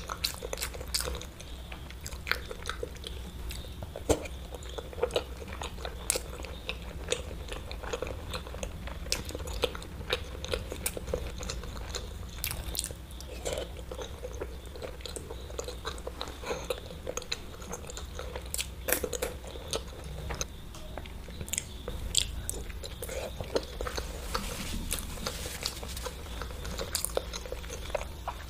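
Close-up chewing and biting of whole boiled eggs coated in red chili sauce, with a steady run of small sharp mouth clicks and smacks.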